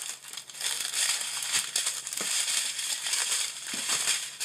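Thin plastic crinkling in irregular crackles as the clear film over a diamond-painting canvas and small plastic bags of resin drills are handled.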